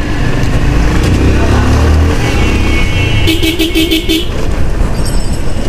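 Road traffic noise with engine rumble, then a vehicle horn sounding a rapid string of about six short beeps a little over three seconds in.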